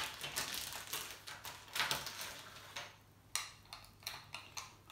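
Thin plastic zip bag crinkling and rustling as a small accessory is slid out of it, followed about three seconds in by a few light, sharp clicks and taps as the flat piece is handled.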